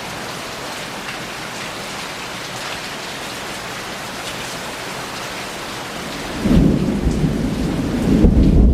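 Very heavy thunderstorm rain falling steadily. About six and a half seconds in, a deep rumble of thunder rolls in and grows louder toward the end.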